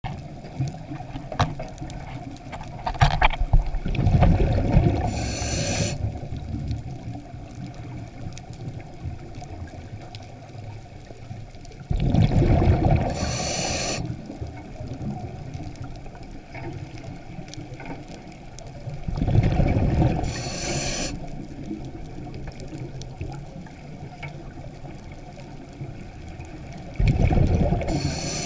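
Scuba diver's regulator breathing underwater: four rushes of exhaled bubbles, each about two seconds long and coming about every seven to eight seconds, with quieter water noise between.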